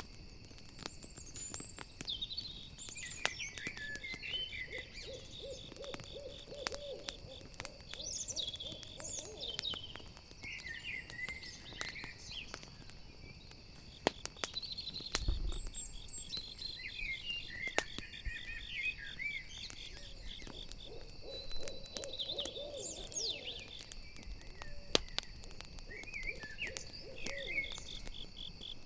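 Night forest soundscape: a campfire crackling with irregular sharp pops, crickets chirping in a steady high pulse, and an owl hooting in runs of low wavering notes, over high chirping calls. A single low thump comes about halfway.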